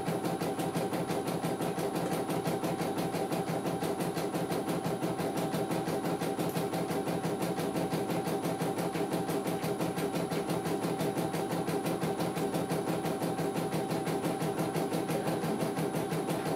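CNY E900 portable computerized embroidery machine stitching a test design, a rapid, even needle rhythm over the steady run of its motor.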